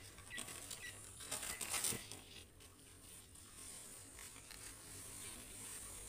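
Crumpled newspaper wrapping rustling and crinkling as hands untie and pull it open, loudest about a second and a half in.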